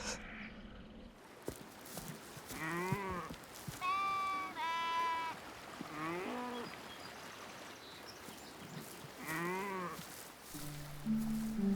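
Sheep bleating: three quavering bleats a few seconds apart, with two steadier, higher-pitched calls between them. Soft music comes in near the end.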